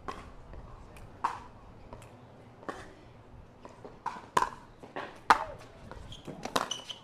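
Sharp hollow pops of pickleballs struck by paddles and bouncing on a hard court, a dozen or so at irregular intervals, the loudest about five seconds in.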